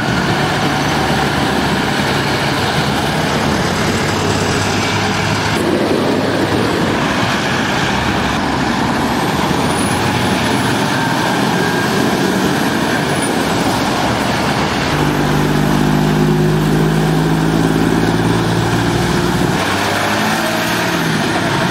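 Heavy diesel lorries driving round a roundabout one after another, a loud steady engine and road noise. The sound changes abruptly a few times as one truck gives way to the next, with a deeper engine drone for a few seconds near the end.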